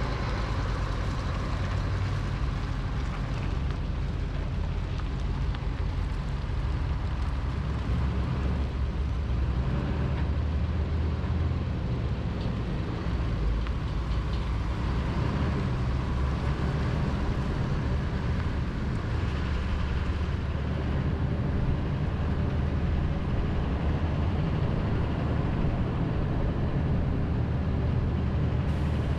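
Vehicles driving slowly on a road: a steady low engine and road rumble, heard from inside the cab of the following vehicle.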